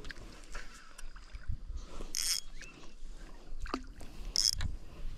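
Spinning rod and reel being cast: two short hissing swishes about two seconds apart, over wind rumbling on the microphone.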